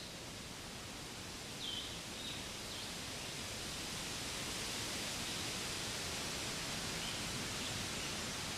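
Spring forest ambience: a steady, even hiss that grows a little louder about four seconds in, with a few short falling bird chirps around two seconds in and one faint chirp near the end.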